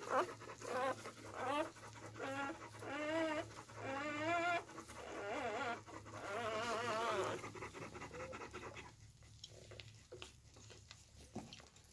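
Newborn Belgian Malinois puppies crying in a string of wavering, warbling cries over the first seven seconds, then going quieter. The crying comes as a puppy struggles to latch on and nurse.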